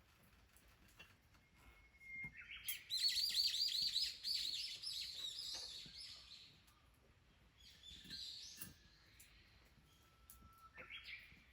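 A wild songbird singing: a quick run of repeated high chirping notes lasting about four seconds, then two shorter phrases.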